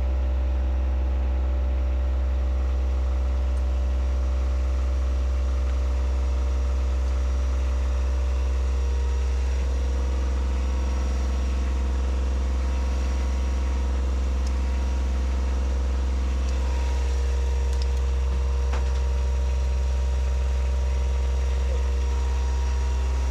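Engine-room machinery running with a steady low drone and constant hum, like an engine at idle. A few faint metal ticks from hand tools working a seized clamp in a vise come through it now and then.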